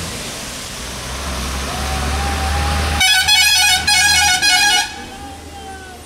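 A passing vehicle's horn blows twice in quick succession for about two seconds, starting about three seconds in, over a steady rush of falling water. The tone of the approaching vehicle drops in pitch as it goes by near the end.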